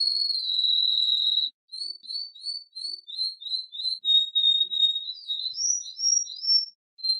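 Domestic canary singing. A long whistled note falls slowly, then breaks into a run of short repeated notes at about three a second. A steady held note and a few higher rising notes follow, and the song stops near the end.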